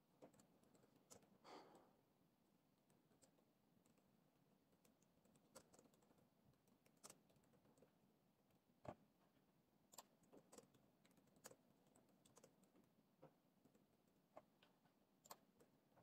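Faint, unhurried typing on a laptop keyboard: single key clicks at irregular intervals, about one or two a second with short pauses. A brief soft rustle about a second and a half in.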